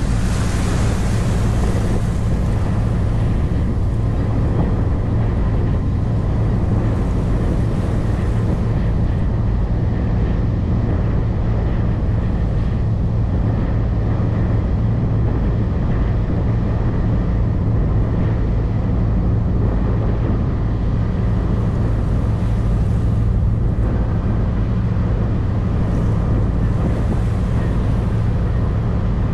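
A boat's engine running at a steady, unchanging low drone, with wind buffeting the microphone and water rushing past.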